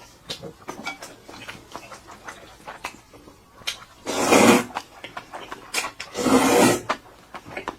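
Close-miked eating sounds: small wet clicks of chewing and mouth noise, with two louder noisy bursts about four and six seconds in.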